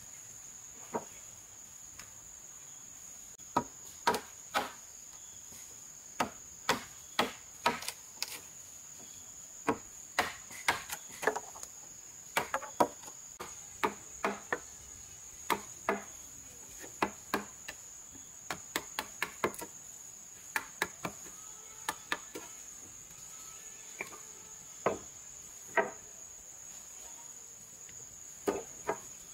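Hammer striking solid timber beams in irregular knocks, some in quick runs and some alone, with pauses between. A steady high insect drone runs underneath.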